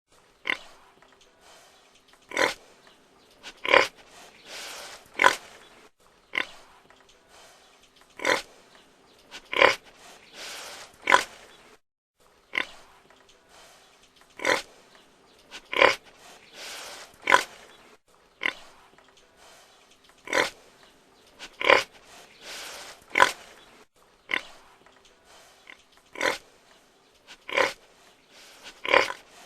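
A pig grunting: short, sharp grunts about every second and a half, with a longer, breathier grunt among them. The same few-second sequence repeats as a loop about five times.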